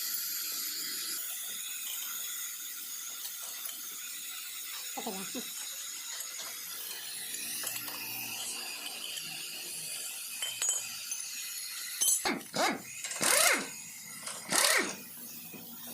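Steady faint hiss, then a few loud metallic knocks and clinks of hand tools on metal near the end.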